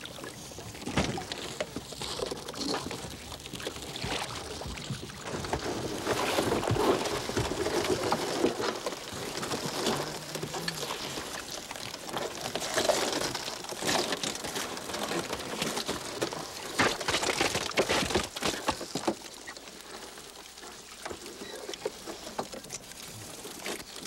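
Water splashing and dripping as a cod trawl line is hauled by hand over the gunwale of a small open boat, with irregular knocks and clatter of gear and fish against the boat's sides.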